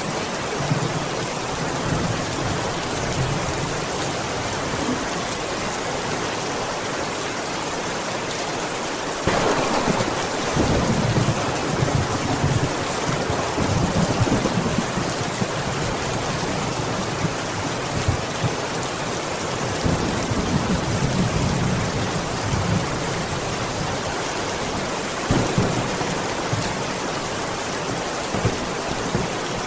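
Steady heavy rain, with thunder rolling in low and loud from about nine seconds in and rumbling again a little later.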